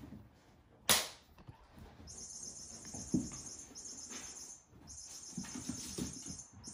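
Kittens playing on a hard floor and in plush beds: soft thumps and scuffles of small paws, with one sharp snap about a second in. A high, even hiss starts about two seconds in and runs nearly to the end.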